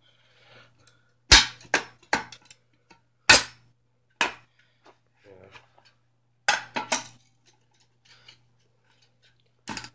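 A knife blade levering at the glued magnet of a 12-inch woofer, giving about ten sharp metallic clicks and snaps spread unevenly, as the glue joint is worked loose around the magnet.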